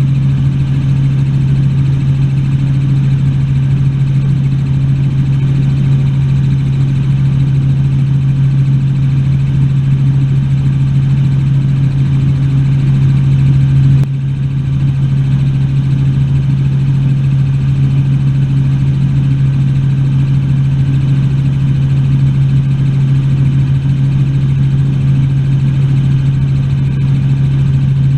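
Helicopter running steadily in flight: a constant, loud low drone with a strong steady hum. The level dips briefly about halfway through.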